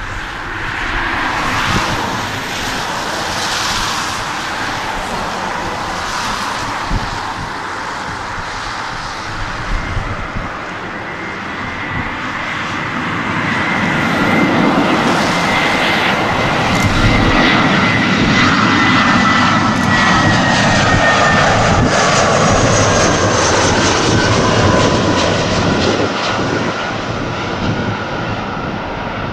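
Airbus A320-family jetliner on final approach, its turbofan engines' roar and whine growing louder as it nears. The whine slides down in pitch as the jet passes and eases off slightly near the end.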